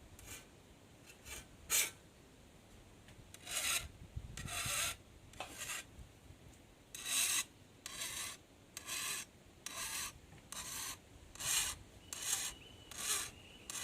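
Hand file rasping along the steel edge of a cane knife in a series of separate strokes, roughly one a second, filing away from the body to rough-sharpen a chipped blade.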